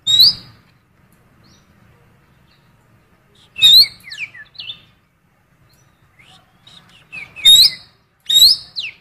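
A cucak keling biru singing in loud, sharp chirping whistles with quick pitch slides, delivered in short bursts: one at the start, a cluster about four seconds in, and a run near the end. Its song is filled with mimicked calls of a female oriental magpie-robin (kacer betina).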